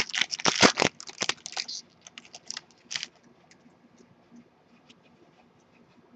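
Shiny foil trading-card pack being torn open, its wrapper crinkling through the first two seconds, then a few light clicks as the cards are handled.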